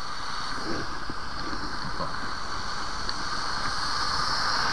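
Steady rush of wind and tyre noise on a wet road, picked up by a camera on a moving bicycle, growing a little louder towards the end.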